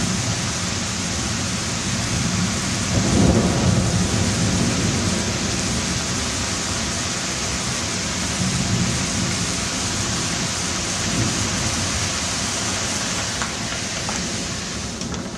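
Steady thunderstorm rain falling, with a low rumble of thunder swelling about three seconds in.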